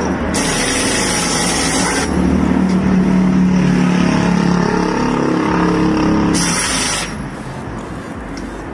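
Pit-lane noise around a Mercedes-AMG GT3 race car during a pit stop: a steady rushing noise with a low hum through the middle few seconds. The level drops about seven seconds in.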